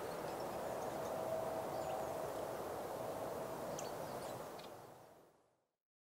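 Outdoor garden ambience: a steady low rushing background with a few faint, short high bird chirps, fading out to silence near the end.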